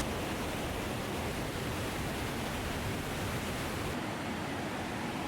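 River running fast in high flow: a steady rush of water. The highest part of the hiss drops a little about four seconds in.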